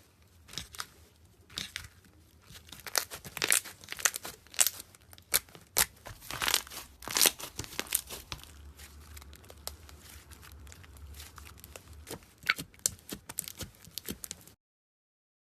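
Slime being squished and poked by hand: irregular wet clicks, pops and crackles in uneven clusters, then a softer crackle with a few sharper pops. The sound cuts off suddenly near the end.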